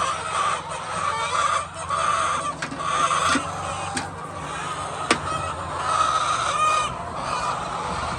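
Many domestic hens clucking together, with a few sharp clicks about four and five seconds in.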